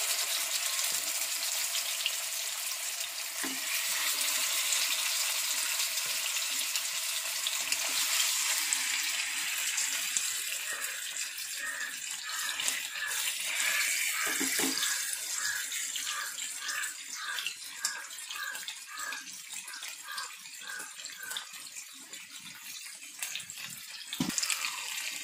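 Masala-coated Indian mackerel sizzling in hot oil in a frying pan as the fish are laid in one after another: a steady frying hiss that eases off in the second half, with a faint regular pulsing under it.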